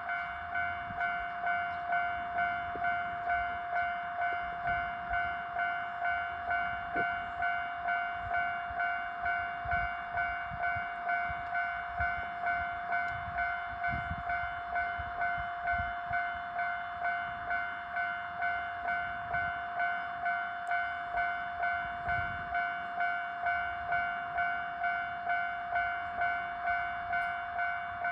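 Japanese level-crossing warning bell ringing: a steady, evenly repeated electronic ding, about one and a half strikes a second, with a low rumble underneath.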